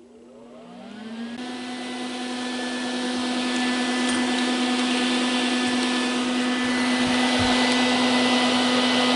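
Handheld electric power tool, most likely an angle grinder, switched on with a click and spinning up to speed in a rising whine over about a second and a half, then running at a steady pitch while a rushing hiss grows gradually louder.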